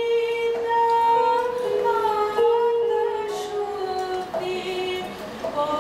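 A woman singing a slow melody with electronic keyboard accompaniment, holding long notes that step from one pitch to the next.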